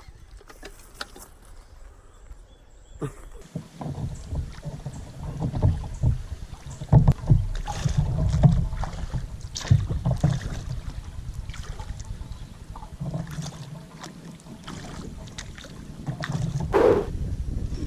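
Kayak paddling on a river: paddle strokes splashing and knocking, with wind buffeting the microphone, starting after about three seconds.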